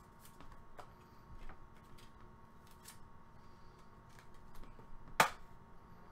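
Soft clicks and taps of trading cards being handled and set down, with one sharper click about five seconds in.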